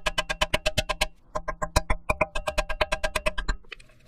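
Rapid hammer blows, about eight a second, on the Trailblazer's steel front spindle to shock the lower ball joint's tapered stud loose, each blow ringing metallically. The hammering breaks off briefly about a second in, resumes, and stops shortly before the end.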